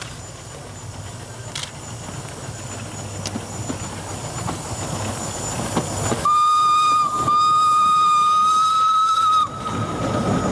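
Small metre-gauge steam tank locomotive approaching and passing, its sound growing louder, then its steam whistle blown loud about six seconds in. The whistle holds one steady note for about three seconds, with a brief break near the start.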